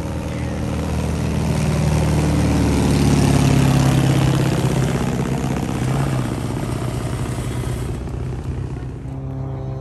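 Ski-equipped single-engine light plane flying low overhead, its propeller and engine drone swelling to a peak about three to four seconds in. The pitch then drops slightly as it passes and the sound fades as it flies off.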